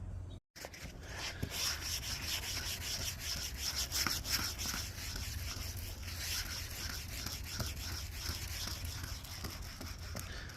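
Sandpaper being rubbed by hand across a plastic car headlight lens in quick back-and-forth strokes, a few a second. It starts about half a second in.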